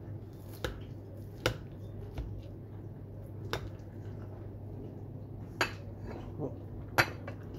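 Metal serving spoon scraping and knocking against a ceramic baking dish as baked macaroni cheese is dug out and served: about seven sharp clinks and taps, the loudest about a second and a half in and near the end.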